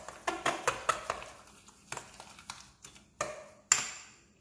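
Metal fork tapping and scraping against a small glass bowl as mashed strawberries and sugar are stirred: a quick run of clicks in the first second or so, then sparser taps, and a louder clink with a brief high ring near the end.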